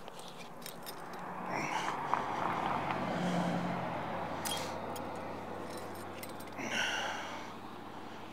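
A car passing on the road beside the bridge, swelling up and fading away over a few seconds. Light metallic clinks come from the magnet-fishing magnet, its carabiner and rope being handled.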